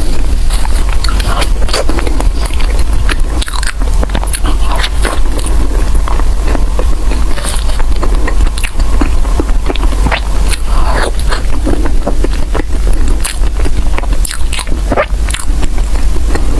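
Close-miked chewing of soft bread: wet mouth sounds with many small clicks and smacks, over a steady low hum.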